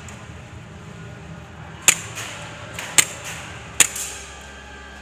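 Airsoft gun firing three single shots, each a sharp crack, about a second apart, over a steady low hum.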